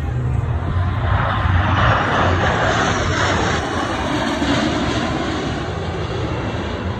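A formation of F-16 Fighting Falcon jets flying past, their engine noise rising to a rushing peak a couple of seconds in and then fading away, over a steady low rumble.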